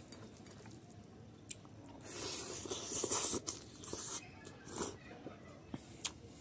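Close-up eating sounds: a person slurping strips of fermented bamboo shoot into the mouth with a long wet slurp about two seconds in, then chewing with sharp wet clicks and smacks.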